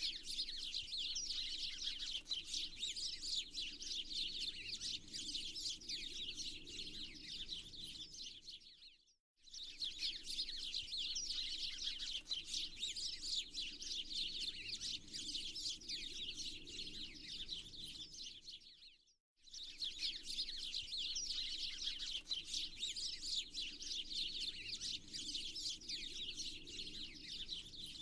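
Dense chorus of many small songbirds chirping and twittering, an ambient nature-sound track that cuts out briefly about every ten seconds.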